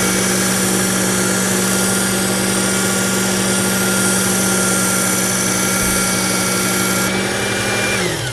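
Work Sharp electric belt knife sharpener running with its 6000 grit belt: a steady motor hum and whine under a hiss. The hiss drops away about seven seconds in, then the motor is switched off and winds down, its pitch falling, near the end.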